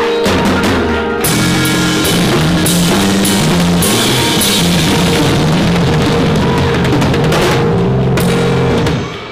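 Live band playing the closing instrumental bars of a contemporary R&B song: a drum kit with regular hits over a bass line and held chords, with no singing, stopping sharply near the end and ringing away.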